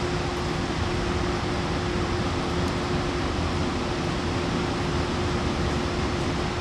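Freight train running past: a steady rumble and hiss with a constant hum throughout.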